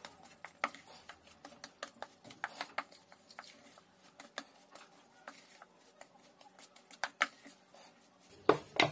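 Wooden spoon stirring and scraping crumbly, stiffening cookie dough in a ceramic bowl: soft irregular clicks and taps of the spoon against the bowl's sides, several a second, with a few louder knocks near the end.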